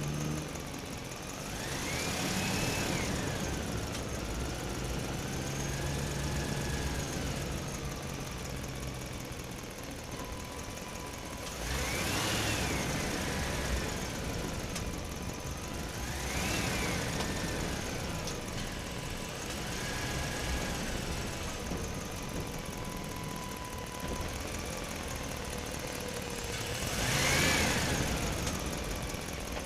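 A small motor running, its whine rising and then falling in pitch several times over a steady hum.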